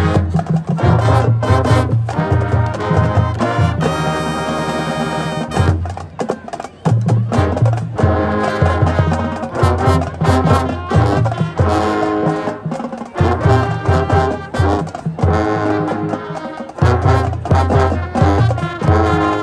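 High school marching band playing: brass over a steady beat of drums, with a held brass chord about four seconds in.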